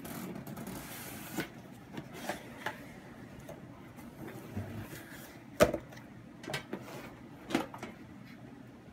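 Cardboard subscription box being opened by hand: a brief scrape of cardboard sliding, then scattered light knocks and taps as the box and its contents are handled, with one sharper knock a little past halfway.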